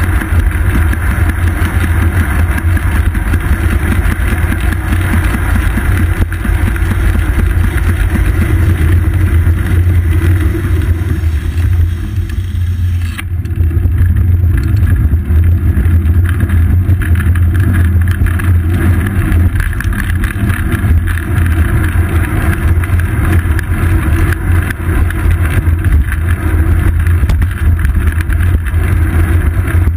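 Wind buffeting and road rumble picked up by a GoPro Hero 2 mounted on the seat post of a moving bicycle: a loud, steady low rumble that dips briefly about twelve seconds in.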